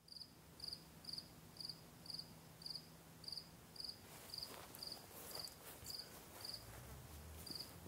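Cricket chirping steadily, about two high chirps a second. A faint low hum fades out about halfway.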